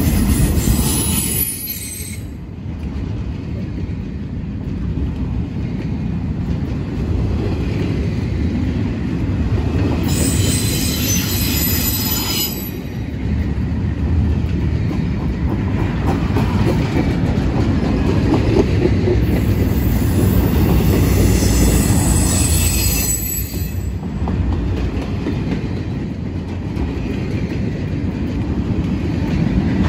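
Empty intermodal well cars of a CSX freight train rolling past with a steady low rumble of wheels on rail. High-pitched wheel squeal comes in three stretches: at the start, about ten seconds in, and again about twenty seconds in for a few seconds.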